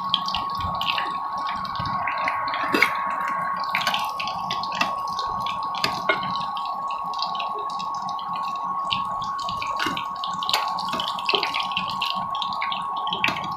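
Gram-flour-battered pumpkin flowers frying in mustard oil in a non-stick pan: a steady sizzle with frequent crackles and pops, and a spatula scraping and knocking against the pan as the fritters are lifted. A steady high tone runs underneath.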